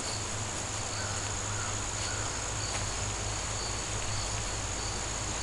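Insects trilling steadily in a constant high-pitched buzz, with a fainter chirp repeating about twice a second, over a steady low rumble.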